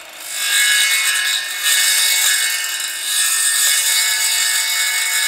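Hitachi 18V cordless circular saw cutting slowly through a fibreglass tent-pole rod. The steady whine of the spinning blade and motor runs under a loud, harsh grating cut that starts about half a second in.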